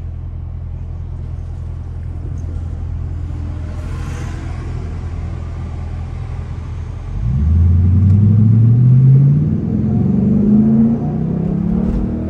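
Straight-piped 5.7-litre HEMI V8 of a 2021 Dodge Durango R/T, heard from inside the cabin: a steady low idle, then about seven seconds in it pulls away hard, the exhaust note rising in pitch, dropping at a gear change, and rising again.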